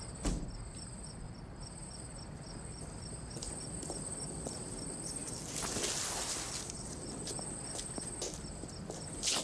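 Crickets chirping: one steady high trill and a second chirp pulsing about four times a second, with faint footsteps on pavement. A thump comes just after the start and a short rushing hiss about six seconds in.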